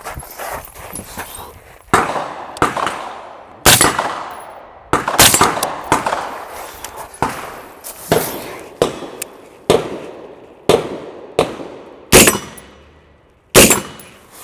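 Arsenal Democracy AD-15 AR pistol in 5.56 firing a dozen or so single shots at an uneven pace, roughly one a second. Each sharp report trails off in a fading echo.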